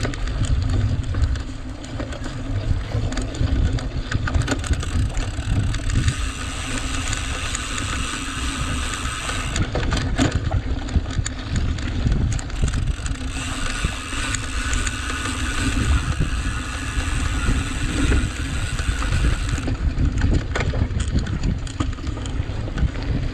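A cyclocross bike ridden at race pace, with wind rumbling on the microphone over steady tyre noise and the rattle of chain and frame on rough, dry ground. Sharper clicks and knocks come in around the middle and again near the end, and a brighter hiss rises for several seconds in between.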